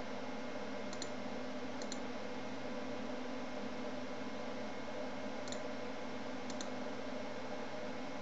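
Four faint computer mouse clicks, each seemingly doubled, about 1, 2, 5.5 and 6.5 seconds in, over a steady hum and hiss.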